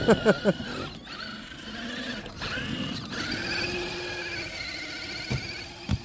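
Axial SCX6 Honcho RC crawler's electric motor and drivetrain whining under load as the truck strains to climb over a rock, the pitch wavering slightly. Two short clicks come near the end.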